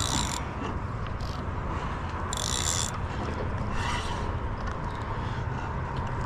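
Penn Spinfisher 6500 spinning reel giving short buzzing bursts of about half a second each, one near the start and one a little past two seconds in, over a steady low rumble.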